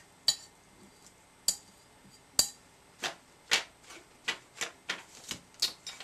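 Sharp, irregular taps and clicks as a paintbrush is cleaned: a few spaced out at first, then about two a second in the second half.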